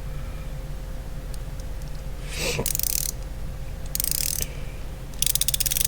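Tekton metric ratcheting box-end wrench being worked back and forth, its fine-tooth ratchet, which the owner believes is 72-tooth, giving three short bursts of rapid, fine clicking about two and a half, four and five seconds in.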